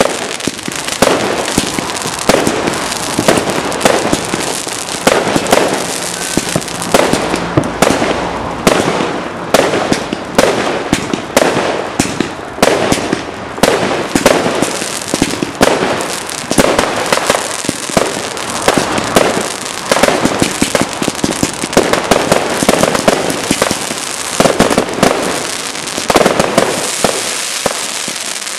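Category 2 and 3 consumer fireworks going off without a break: loud bangs about once or twice a second, with many smaller pops packed between them.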